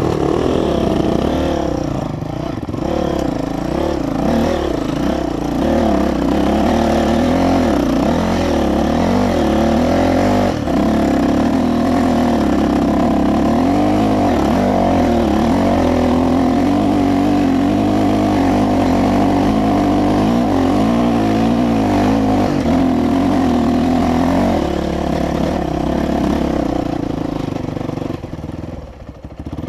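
Dirt bike engine running under load as the bike is ridden over a rocky trail. The revs rise and fall for the first ten seconds or so, hold fairly steady through the middle, and the throttle eases off near the end.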